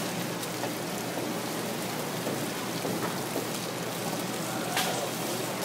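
Steady hiss of running and splashing water at a fish stall.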